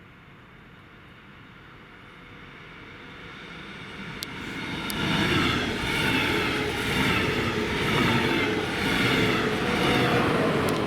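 Electric passenger train approaching and passing close by on the rails, growing louder, then a steady clatter that swells about once a second as the cars go by, with a few sharp clicks.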